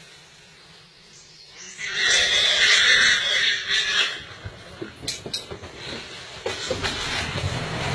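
A loud, harsh animal cry lasting about two seconds, from a tiger attacking a wild boar. A few sharp clicks follow about five seconds in.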